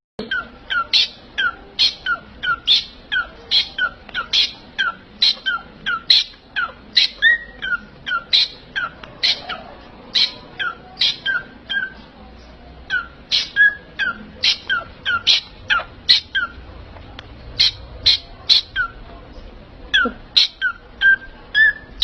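A small parrot calling over and over, short high calls at about two a second, with a brief pause about halfway through.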